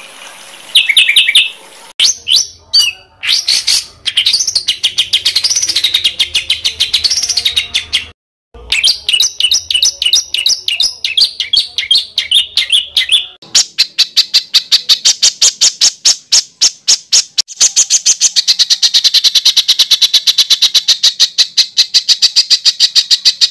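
Songbirds singing, in several recordings cut together: rising and falling whistled phrases and chirps, broken by abrupt cuts, then from about halfway a fast, evenly repeated string of short, sharp notes.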